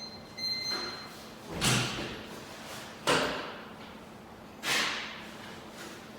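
Three heavy thumps, about a second and a half apart, each dying away over half a second.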